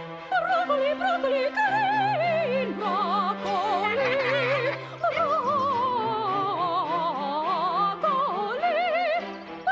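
Operatic-style singing with a wide vibrato over orchestral accompaniment; the melody makes a long slide downward in the middle.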